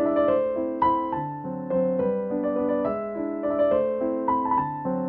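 Background piano music: a keyboard playing a gentle melody over chords, with notes changing every half second or so.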